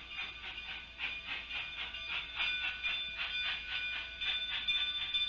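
Narrow-gauge K-36 2-8-2 steam locomotive pulling away under load, its exhaust chuffing at about four beats a second and growing louder, with a steady high tone running underneath.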